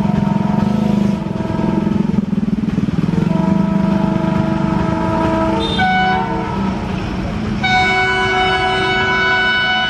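Indian Railways diesel locomotive approaching with a passenger train, its engine running with a fast, even beat. Its horn sounds faintly at first, gives a short blast about six seconds in, then a long blast from about eight seconds in.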